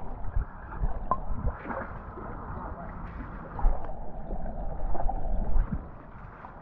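Muffled water noise picked up by a camera under water, with irregular low thumps and a few short knocks as it is moved about.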